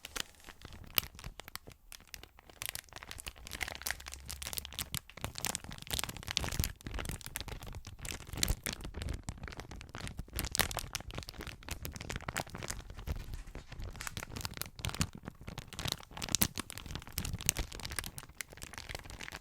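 A small insulated lunch bag being handled and squeezed close to the microphone, its material crinkling and crackling in a dense run of irregular sharp crackles.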